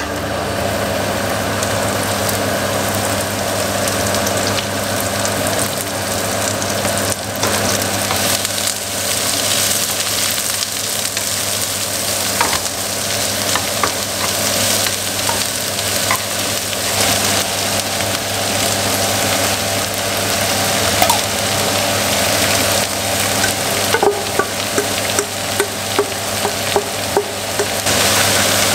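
Sliced onion and shredded vegetables sizzling as they fry in butter in a frying pan, stirred with a wooden spatula. Near the end the spatula taps against the pan about twice a second.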